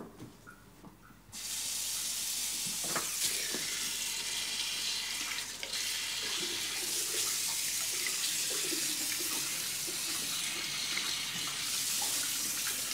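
Hand shower at a hair-washing basin turned on about a second in, then water spraying steadily onto a child's hair.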